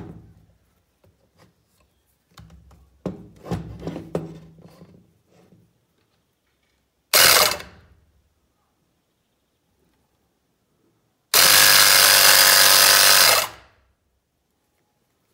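A 12 V car tire inflator's electric motor and piston pump, wired straight to a battery, give a half-second burst, then run for about two seconds and stop as the wires are touched on and off. This is a test run after the piston seals were refitted, and the pump is working. A few clicks of the wires being handled come before it.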